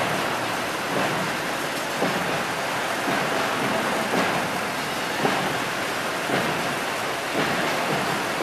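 Steady hiss of outdoor parade street noise, crowd and traffic blended together, with a faint thud about once a second.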